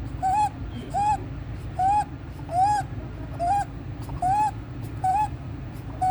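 Newborn baby's inspiratory stridor: a short, high-pitched crowing sound on every breath in, repeating regularly about every three-quarters of a second, the sign of a narrowed upper airway in a baby in respiratory distress.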